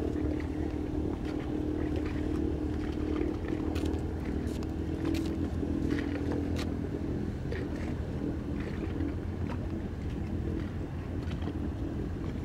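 A boat's engine running with a steady low drone, with scattered light clicks over it.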